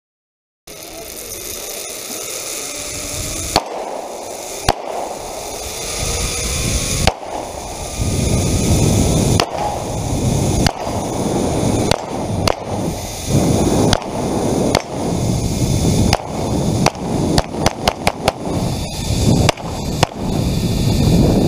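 Zip line trolley running along the cable with rushing wind, growing louder as the ride picks up speed, cut by handgun shots fired at steel targets: single shots at first, then about one a second, then a quick string of shots near the end.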